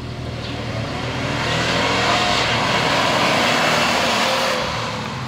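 A car driving past on a road: the tyre and engine noise swells as it approaches, is loudest as it passes for a couple of seconds, then drops away near the end.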